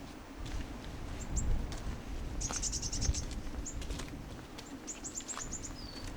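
Small bird chirping in short high notes, with a quick run of calls about two and a half seconds in and another series near the end closing on a short falling whistle. A steady low rumble of wind on the microphone and faint footsteps lie underneath.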